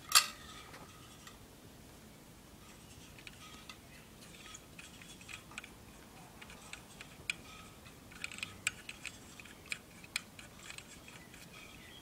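Light, irregular metallic clicks and ticks from a brass Murday balance-wheel clock movement, opening with one sharp metal clink that rings briefly. The clicks are sparse at first and come more often in the second half.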